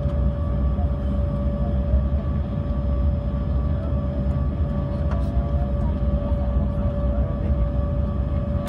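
Jet airliner engines running at low taxi power, heard inside the passenger cabin: a steady low rumble with a constant whine on top.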